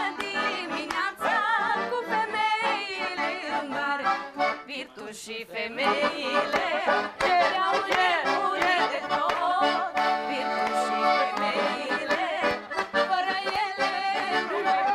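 Live accordion music, a lively folk-style tune played without a break, with a voice singing along at times.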